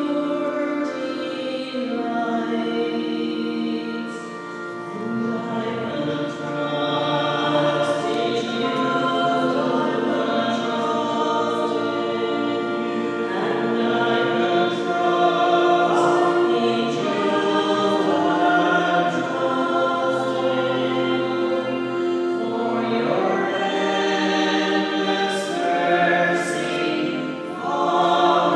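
Sacred music sung with accompaniment: voices hold long notes that move from chord to chord without a break.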